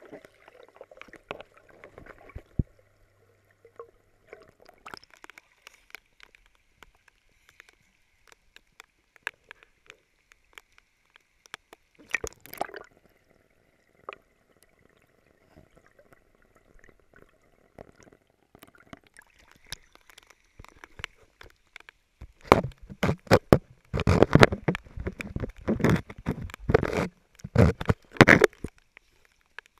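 Rain on a swimming pool heard from under the water: faint, scattered ticks and clicks of drops striking the surface overhead. About two-thirds of the way through, loud splashing and sloshing begins as the camera is moved about and breaks the surface.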